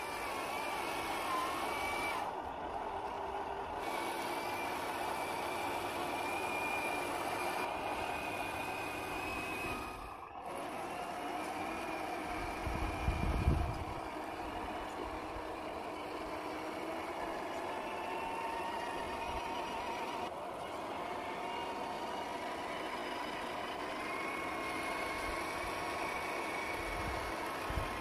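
Brushed electric motor and geared drivetrain of a 1/10-scale RC crawler whining under load as it churns through thick, sticky mud, the whine drifting slowly up and down in pitch with the throttle. A short low rumble about halfway through is the loudest moment.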